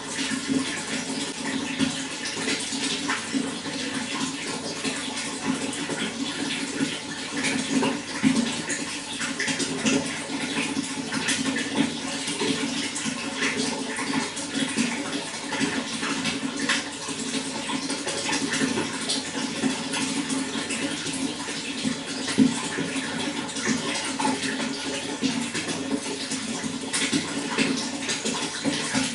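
Running water flowing steadily, with many small splashes and trickles throughout.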